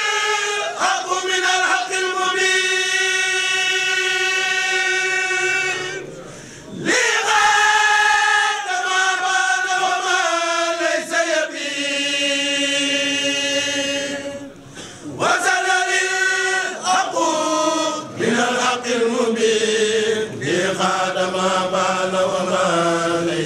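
Voices chanting an Arabic devotional poem, a Mouride khassida, in long drawn-out melodic phrases with short pauses between them.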